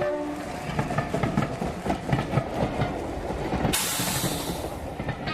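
Train sound effect used as a song intro: a rail carriage clattering along, then a sudden loud hiss of air about three and a half seconds in that fades away.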